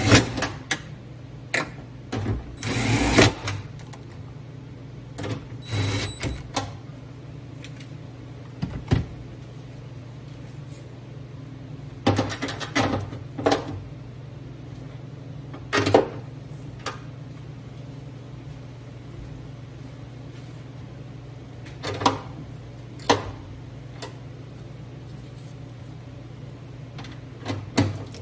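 Cordless 1/4-inch impact driver running in short bursts, spinning down and snugging small 10 mm trim nuts. Between the bursts come scattered clicks and knocks of hands working plastic trim, over a steady low hum.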